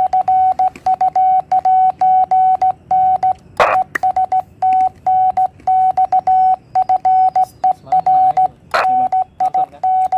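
Morse code (CW) hand-sent on a mini military-style straight key, heard as the transceiver's sidetone: a steady mid-pitched tone keyed on and off in dits and dahs, with a click at each keying edge. Two short bursts of noise break in, about three and a half seconds in and near the end.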